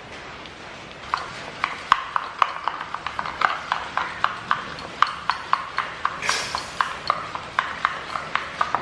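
A metal spoon clinks against a small stainless steel bowl as a thick mixture is stirred, about four sharp clinks a second, starting about a second in.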